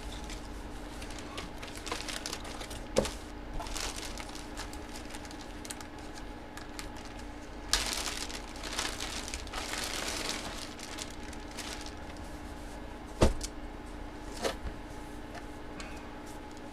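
Plastic packaging crinkling and rustling in bursts, the longest about 8 and 10 seconds in, with scattered clicks and a sharp knock about 13 seconds in from items being handled. A faint steady hum runs underneath.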